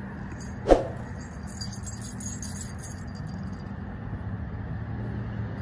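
A single sharp knock about three-quarters of a second in, over a steady low rumble, with faint light clinking.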